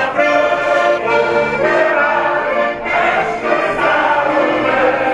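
Button accordion playing a tune, with steady chords held under a moving melody.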